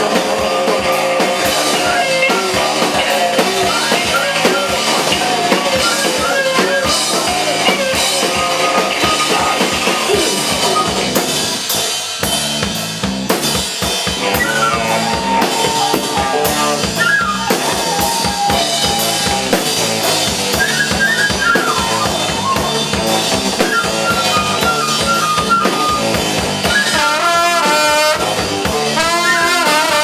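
Loud live band music: drum kit and guitar with a flute playing the melody, and a trombone coming in near the end.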